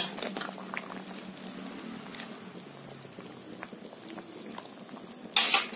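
Thick suran (elephant foot yam) curry bubbling at a boil in a kadhai, a steady hiss with many small pops. A short, loud burst of noise comes near the end.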